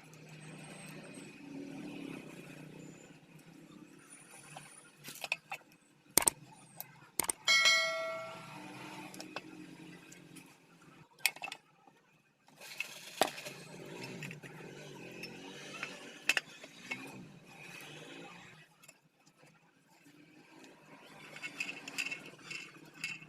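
Metal parts and tools handled on a workbench during a cutter machine repair: scattered clicks and knocks, and one clear ringing clang about seven seconds in as a metal piece is struck or set down.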